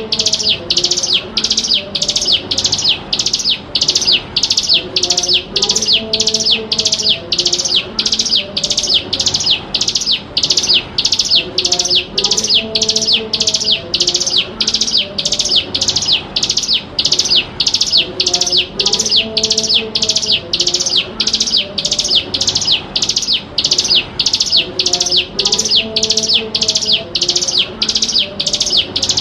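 Ciblek gunung (hill prinia) calling: a long, even series of sharp, high chirping notes, about one and a half a second, as played on a looped lure track for teaching young birds the song.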